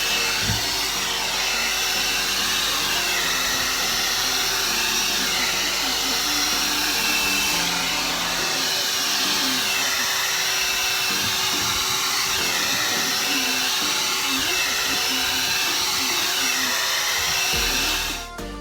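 One-step hair dryer and styler (hot air brush) blowing steadily on its low setting, a steady rushing of air with a thin whine from the motor, running as it is worked through curly hair. It cuts off suddenly near the end.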